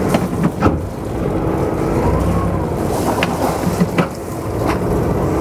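Sailing yacht's inboard diesel engine running in reverse through its saildrive: a steady low drone with propeller wash, swelling a little about two seconds in. A few short knocks sound over it.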